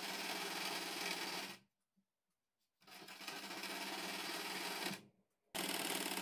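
Sewing machine stitching a gathered net ruffle onto fabric in three runs. The first lasts about a second and a half, and after a pause the second lasts about two seconds. A third starts near the end.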